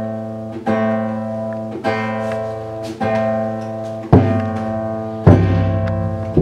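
Live music: chords strummed on an acoustic plucked string instrument about once a second, each chord ringing on. Deeper bass notes come in from about four seconds in.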